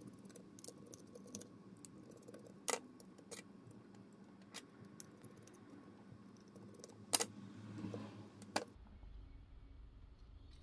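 Faint clicks and light rattling of a micro screwdriver and the small plastic parts of a wireless mouse being unscrewed and handled, with a few sharper clicks, the loudest about seven seconds in.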